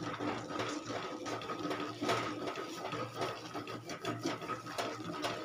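Wooden rolling pin stirring thick rice-flour dough in a metal pot: quick, irregular scraping and knocking against the pot's sides and base, over a faint steady hum.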